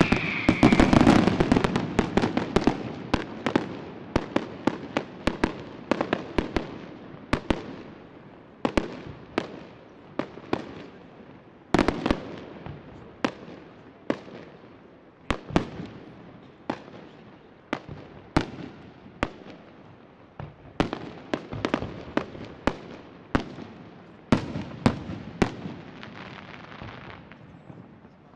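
Aerial fireworks shells bursting: a dense volley of bangs at the start, then separate sharp bangs about one or two a second with crackling between them, thinning out near the end.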